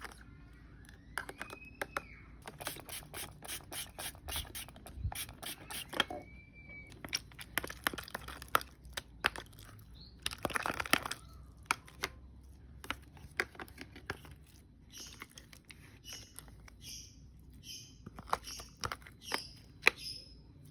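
A parcel's packaging being opened by hand, with tearing, crinkling and scraping and many short sharp clicks and rustles.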